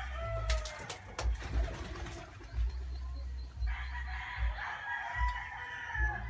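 A rooster crowing: the tail of one crow at the very start, then one long crow starting nearly four seconds in and lasting about two and a half seconds. Low bumps on the microphone sound underneath.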